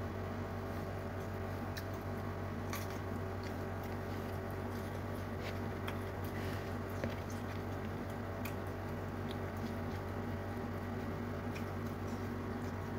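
A person chewing food and picking rice and fish from a plate with her fingers, with scattered soft clicks and squishes, over a steady low hum.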